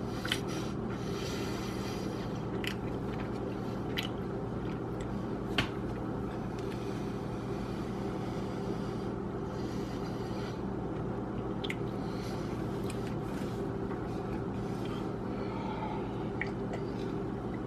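Eating sounds from a bologna tortilla being bitten and chewed, with scattered sharp mouth clicks, over a steady electrical hum.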